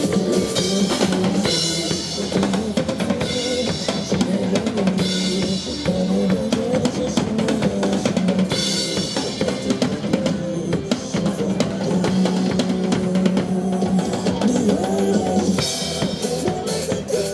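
Up-tempo music with a prominent drum kit, bass drum and snare, keeping a steady beat.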